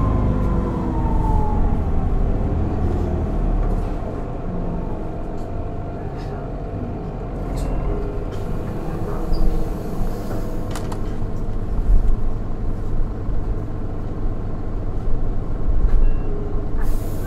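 Cabin sound of an Isuzu Erga city bus with a 4HK1 inline-four turbodiesel and automatic gearbox: engine revs fall away over the first couple of seconds as the bus comes off the throttle. Then comes a lower steady running rumble with body rattles and knocks. A hiss of air comes near the end.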